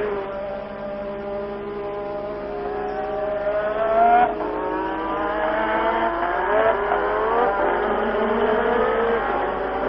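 Formula 1 race cars' turbocharged V6 engines accelerating hard, the pitch climbing and then dropping sharply at each upshift, about three times.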